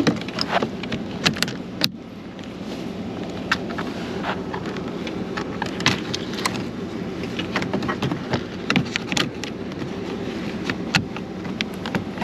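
Heat gun blowing steadily while old window tint is scraped off the glass, with many sharp scraping clicks scattered over the hum.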